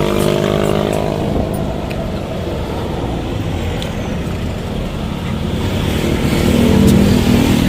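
Road traffic: motor vehicle engines running past, one fading early on and another growing louder near the end.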